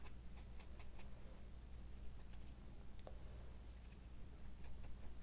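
Faint light clicks and dabs of a foam brush painting a wooden clothespin, over a steady low hum.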